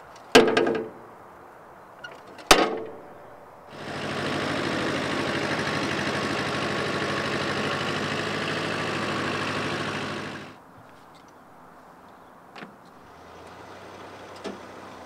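Two sharp metallic bangs with a ringing decay, about two seconds apart, then the Iseki SXG216 ride-on mower's two-cylinder diesel engine running steadily for about six seconds, fading in and fading out.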